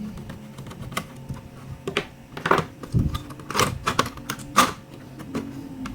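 Irregular plastic clicks and clacks of laptop case parts and internal components being handled and pressed back into place during reassembly, with a few louder knocks in the middle.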